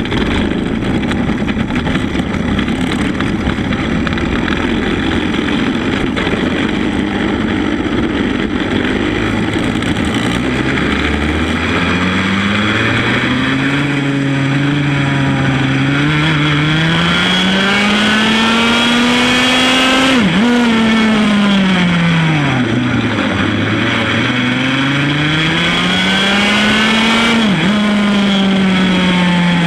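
Single-cylinder two-stroke engine of a 100 cc Formula A racing kart. It runs rough at low revs for the first third, then its revs rise and fall over and over, with two sudden brief drops partway through.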